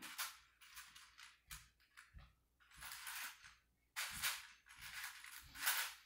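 Short, irregular bursts of soft rustling from a person shifting her legs and body while lying on a wooden floor, with a few faint low knocks.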